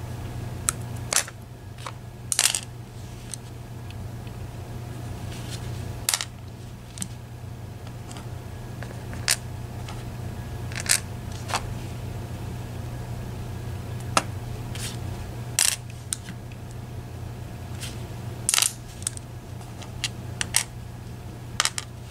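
Small sharp metallic clicks, about ten spread unevenly over twenty seconds, as the tiny pins, springs and tools of a disassembled Medeco Biaxial lock cylinder are handled and set down in a pinning tray, over a steady low hum.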